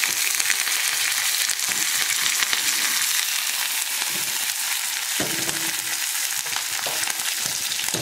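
Hot oil sizzling steadily in a steel kadai as a tempering of dried red chillies, crushed garlic and curry leaves fries, with mustard seeds and cumin spluttering. A few light knocks of steel cookware being moved, about five seconds in and at the end.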